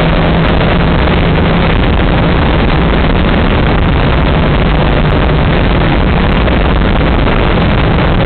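Lotus Elise driving at steady speed, recorded from on board: a constant engine drone mixed with loud wind and road noise.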